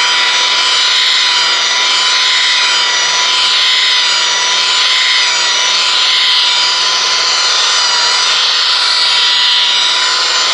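Electric rotary polisher running steadily at about 1400 RPM, its wool compounding pad working over car paint, with a constant motor whine.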